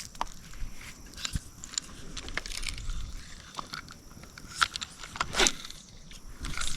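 Scattered small clicks and light rustles of handling, with two louder scraping rustles about four and a half and five and a half seconds in.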